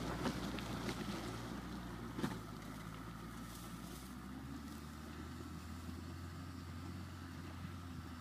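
Suzuki Jimny's engine running steadily at idle, a low hum under light wind, with a few sharp clicks in the first couple of seconds.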